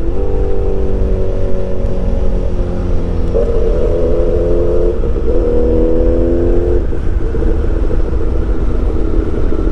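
BMW S1000XR's inline-four engine running under a rider, heard over a steady low rumble of wind on the helmet microphone. The engine note sags slowly, jumps up in pitch about three seconds in and again about five seconds in, then drops back into the wind rumble near seven seconds.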